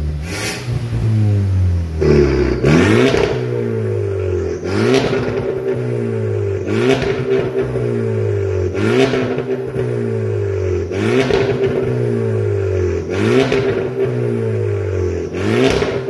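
Volkswagen Golf engine blipped through an aftermarket quad-tip exhaust with a remote-controlled valve, about one rev every two seconds, each rising and falling in pitch. About two seconds in the exhaust gets slightly louder and harsher as the valve is switched from its closed 'normal' setting to its open 'racing' setting.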